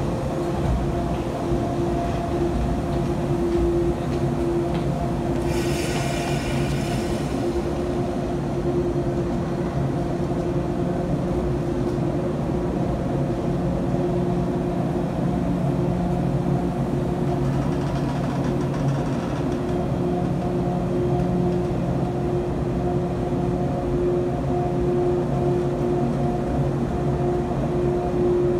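JR East 485-series electric train's underfloor equipment humming steadily with several fixed tones. A brief hiss comes about six seconds in, and a fainter one later.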